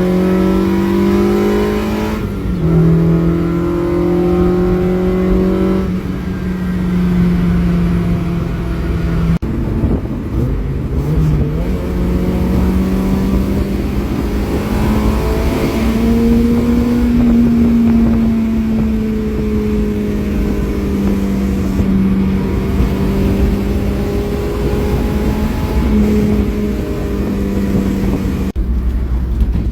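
Honda K24A2 2.4-litre inline-four in a Mazda Miata, running through a 3-inch exhaust with a steady, even note whose pitch drifts gently up and down. The note breaks off briefly and changes at a few points, about 2, 9 and 28 seconds in.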